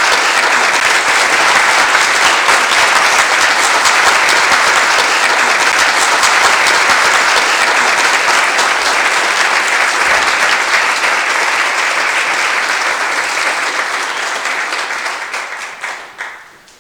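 Large audience applauding, a dense steady wash of many hands clapping that dies away over the last three seconds.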